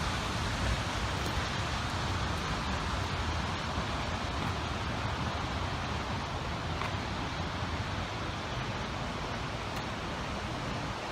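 Waterfall: a steady rush of falling water, easing slightly toward the end.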